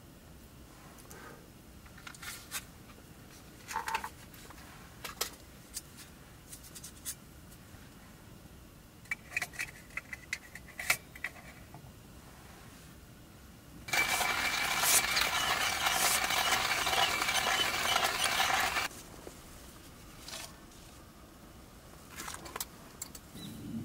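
Small metal camp cookware being handled: scattered light clicks and knocks with a brief ringing clink, then a loud steady rushing hiss lasting about five seconds that starts and stops abruptly.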